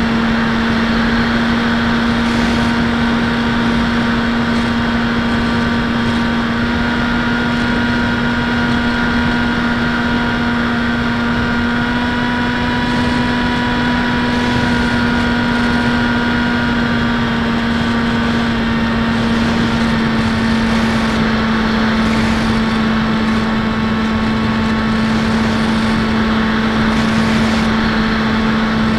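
Brushless outrunner motor (D2826-6, 2200 kV) turning an 8x6 propeller on a Bixler 1.1 foam plane in cruising flight, heard from the onboard camera: a steady drone that holds one pitch, with wind noise over the microphone.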